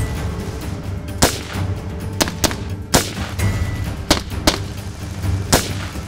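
Wooden rubber band machine gun firing, about seven sharp snaps at irregular intervals, over background music.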